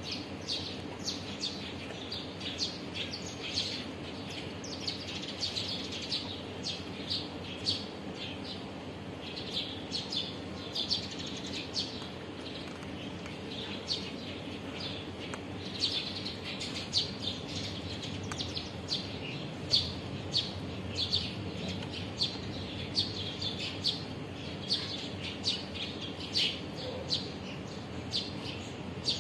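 Small birds chirping in many short, irregular calls throughout, over a steady low background noise.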